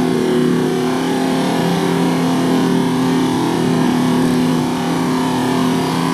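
Toyota 4Runner engine held at steady revs, the engine note constant, as the SUV crawls through deep mud with its wheels churning mud and water.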